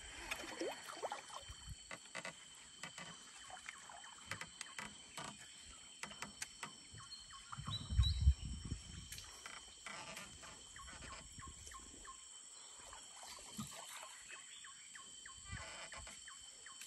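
Steady high-pitched drone of tropical forest insects, with scattered small clicks and one brief low thump about eight seconds in.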